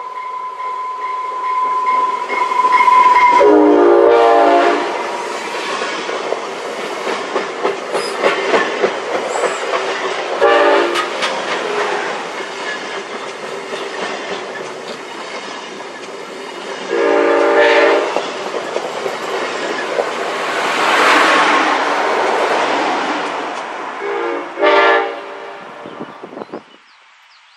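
Amtrak Cascades passenger train passing close, its wheels clacking and rattling over the rails, with loud horn blasts about every seven seconds (longer ones a few seconds in and in the middle, shorter ones between and near the end). The sound fades as the train moves away, then drops off near the end.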